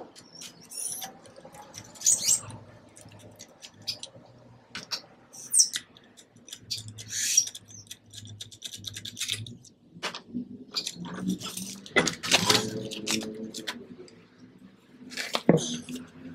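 Lug nuts on a Honda Pilot's front wheel being broken loose with a long breaker bar and socket and taken off: scattered metal clicks, clinks and short scrapes, with a louder knock near the end.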